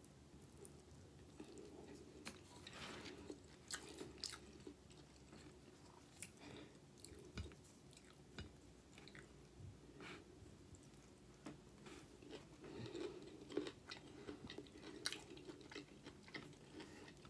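Quiet close-up chewing and mouth sounds of a person eating garlic pasta and broccoli, with scattered soft smacks and small clicks.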